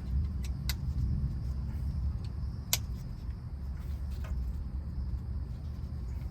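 Steady low rumble with a few sharp metallic clicks from hand work on the Beetle's distributor and ignition wiring; the loudest click comes a little under three seconds in.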